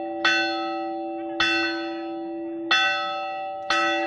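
Hermitage bell rung by pulling its rope from below: four strikes, a little over a second apart, each clang ringing on under the next.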